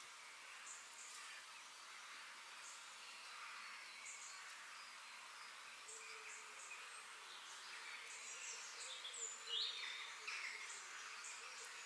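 Forest ambience: a steady insect-like hum under scattered short, high bird chirps, with a louder bird call sliding in pitch a little past the middle.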